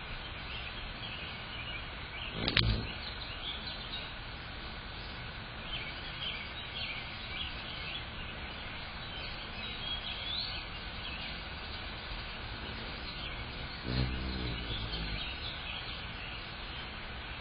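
Small birds chirping over a steady outdoor hiss, with one sharp knock about two and a half seconds in. About fourteen seconds in, the low hum of hummingbird wings rises briefly as a hummingbird comes to the feeder.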